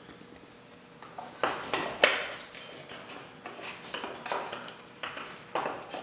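Irregular metallic clinks and knocks of hand tools and parts being handled on top of an engine as it is fitted out, the loudest about two seconds in.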